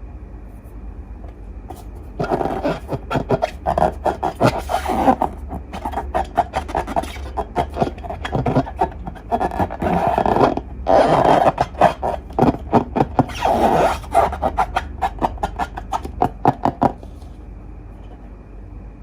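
Long rubber balloons being squeezed and rubbed, giving rapid rubbery squeaks and crackles in quick succession, starting about two seconds in and stopping shortly before the end.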